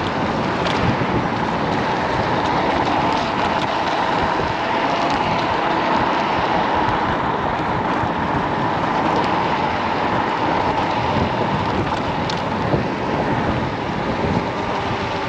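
Steady wind rushing over the microphone of a rider on a Kaabo Wolf King GT dual-motor electric scooter at speed, with the scooter's running noise underneath.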